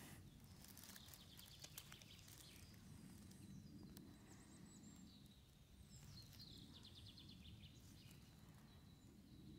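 Near silence: faint outdoor ambience with a low rumble, a few small clicks early on and some faint high chirps in the middle.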